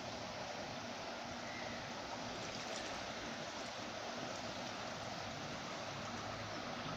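Steady rushing of a wide river running high, its water flowing past the bank.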